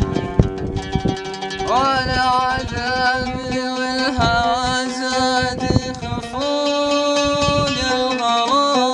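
Middle Eastern music: an oud plucked, with a man singing long held, wavering notes over it from about two seconds in.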